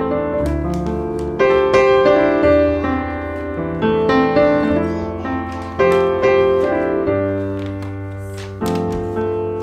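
Background piano music: a calm tune of struck chords and melody notes that ring and fade, with a new chord every second or two.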